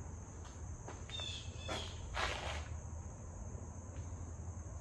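Steady high chirring of crickets, with a couple of short high chirps just after a second in and a brief rustle or scrape a little after two seconds.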